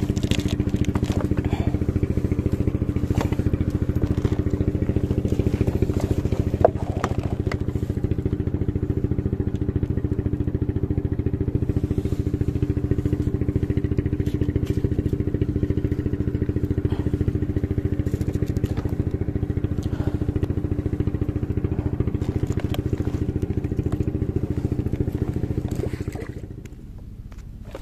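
A small engine running steadily at constant speed, then dying away about 26 seconds in.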